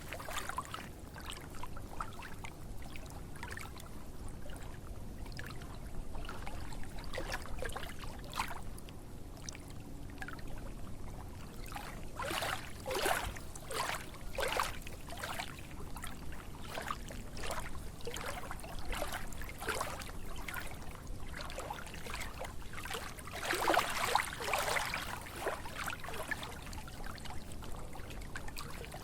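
Water splashing and trickling in irregular spurts over a steady rushing background, with louder clusters of splashes about halfway through and again near the end.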